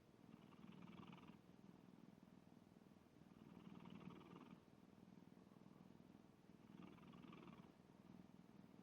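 Black cat snoring faintly, in a slow rhythm of about one breath every three seconds, three snores in all.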